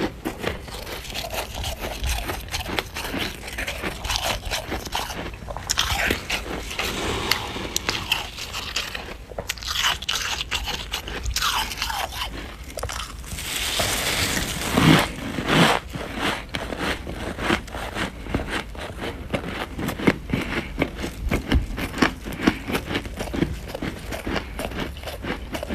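Close-up crunching and chewing of frost scraped from a freezer, a dense run of icy crackles, bites and scrapes, louder about halfway through.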